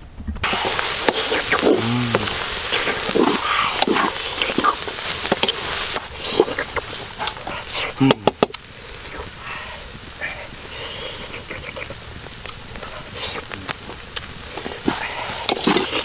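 Grasshoppers stir-frying in a metal pot: a steady sizzling hiss with a ladle scraping and knocking against the pot as they are tossed.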